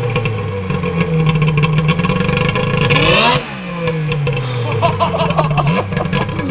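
Polaris Indy XLT 600 triple snowmobile's three-cylinder two-stroke engine, its top end freshly rebuilt, running with throttle blips. It revs up sharply about three seconds in, winds back down, and is revved again near the end.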